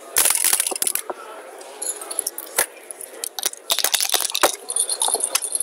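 Backgammon dice being picked up and rattled in a dice cup. A clatter of hard clicks comes just after the start and a denser rattle about four seconds in.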